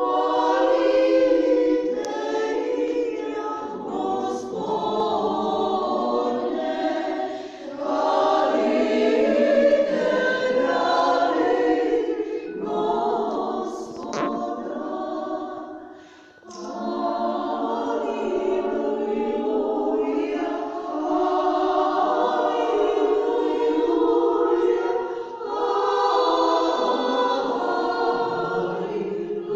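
Women's choir singing Serbian Orthodox church chant a cappella, in long phrases with a short break about halfway.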